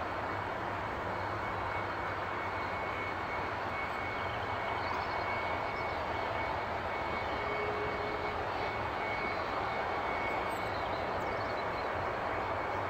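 Jet airliner engine running steadily, a continuous rush of noise with a faint steady high whine.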